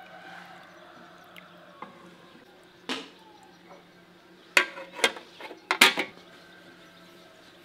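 Aluminium lid being put on a large aluminium cooking pot: a single knock about three seconds in, then several sharp metallic clanks between about four and a half and six seconds as the lid settles in place.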